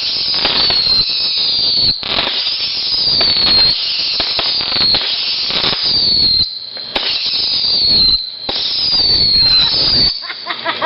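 Whistling fireworks firing in quick succession, about one shot a second. Each shot is a shrill whistle falling in pitch for about a second, over continuous crackling.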